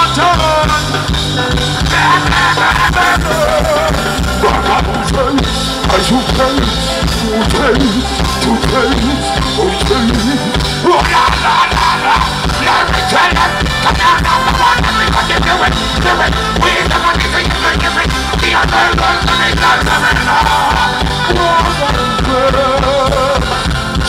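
Live band playing an upbeat song through a loud PA, with a steady drum-and-bass beat and a voice singing over it.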